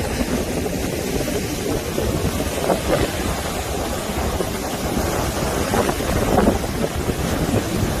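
Rough-sea surf breaking and washing up a sandy beach in a continuous roar, with wind buffeting the microphone in a low rumble.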